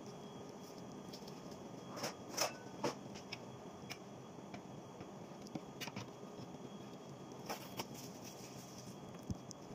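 Scattered light clicks and rustles of gloved hands handling food and a kitchen utensil, over a steady low room hum. The loudest clicks come about two to three seconds in, with a few more later.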